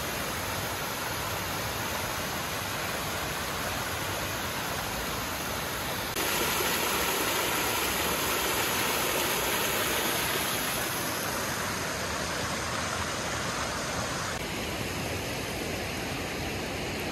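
Steady rush of flowing river water, an even hiss with no distinct events, stepping louder about six seconds in and easing off again later.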